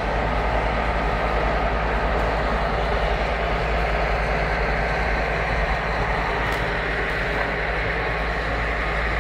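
Mount Washington Cog Railway train running: a steady, even noise with a low hum underneath.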